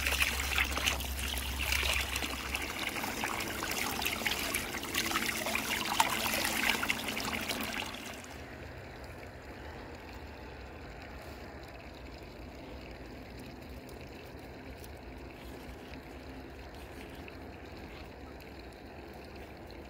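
A stream of water pouring over hands rinsing small fish and splashing into a plastic basin. About eight seconds in it cuts off abruptly, leaving only a faint steady background noise.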